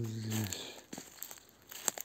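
Footsteps crunching through dry fallen leaves and twigs on a forest floor, with a sharp snap shortly before the end.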